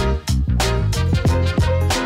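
Background music with a steady beat: drums and a bass line under pitched instrument notes.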